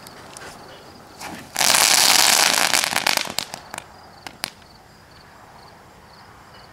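Homemade crackling ball, six jumbo crackling-ball charges wrapped together, going off: a loud, dense burst of rapid crackling about a second and a half in that lasts under two seconds, then a few scattered cracks trailing off.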